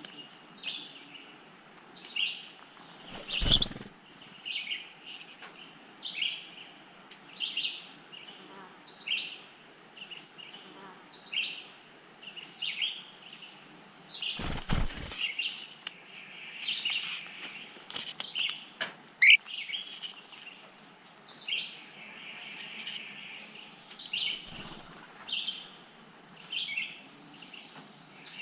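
Eastern Phoebes chirping at the nest, short high calls repeated over and over at roughly one a second. Two brief rustling bursts come about three seconds in and about halfway through.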